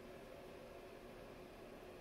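Near silence: faint, steady room hum.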